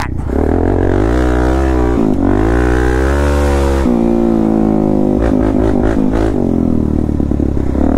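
Suzuki DR-Z400S single-cylinder four-stroke dirt bike engine, fitted with a slip-on exhaust, revving up and down under throttle while riding rough terrain. The pitch climbs and falls, drops sharply about four seconds in, then runs choppier and uneven with a few knocks.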